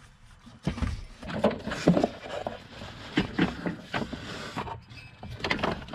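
Ribbed rubber accessory belt being slipped off the engine's pulleys by hand, with irregular light knocks and rubbing.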